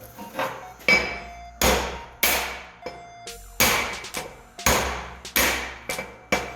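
A hammer striking a metal part, a run of about seven or eight sharp blows at an uneven pace, each with a short metallic ring.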